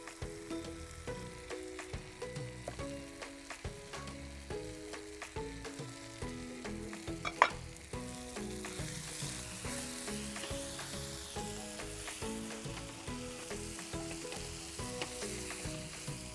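Chicken pieces sizzling as they fry in ghee in a pan, stirred with a wooden spatula, with light knife taps on a chopping board in the first few seconds and a sharp clank about seven seconds in. The sizzle grows louder in the second half.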